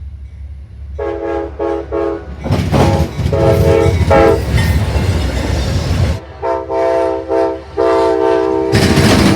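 Train horn, several notes sounding together, blown in a run of short blasts and then longer ones. From about two and a half to six seconds in, a loud rush of wheels on rails is heard under the horn as the train goes by close.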